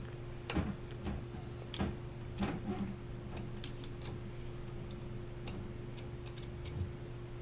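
Irregular light clicks and taps of metal bike parts and tools being handled while a rear derailleur is fitted and adjusted, over a steady low hum.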